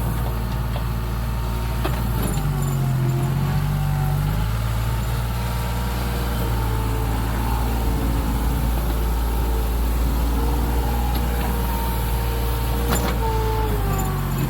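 Excavator engine running steadily while the machine works, its pitch shifting now and then as the load changes. A couple of sharp knocks are heard, one about two seconds in and one near the end.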